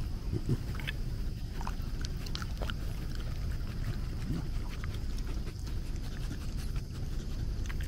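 A dog panting steadily, with a few faint clicks scattered through it.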